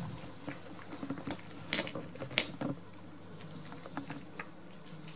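A cat chewing a mouse: irregular crunches and clicks of its teeth, the loudest cluster a little before halfway through.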